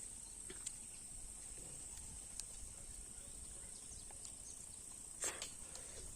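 Steady high-pitched drone of insects, cricket-like, with a few faint clicks and one sharper click about five seconds in.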